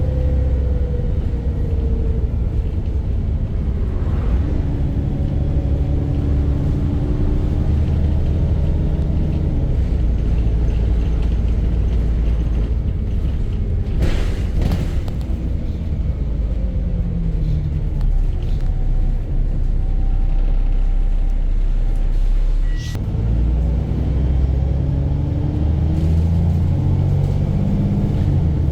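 VDL bus's diesel engine running under way with a knock, its note falling and rising several times with changes of speed and gear. A short hiss about halfway through and a sharp click a little later.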